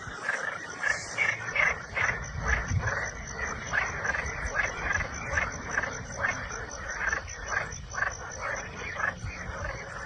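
Frogs croaking in a dense chorus, several croaks a second, over a steady high insect buzz.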